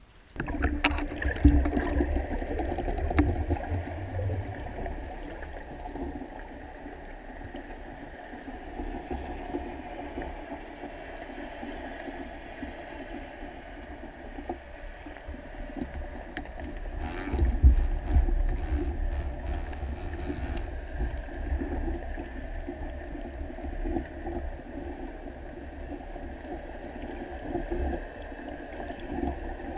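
Underwater sound through an action camera's waterproof housing on a dive: a low, muffled rumble of water moving against the housing over a steady hum, swelling about two seconds in and again about seventeen seconds in, with a few faint clicks around then.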